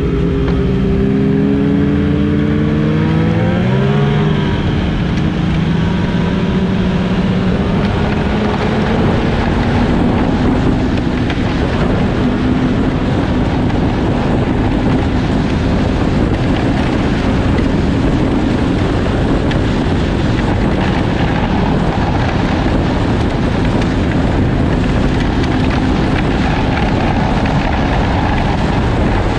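Snowmobile engine running under way over a constant rushing noise. The engine note dips and then climbs again about four seconds in, then holds steady at cruising speed.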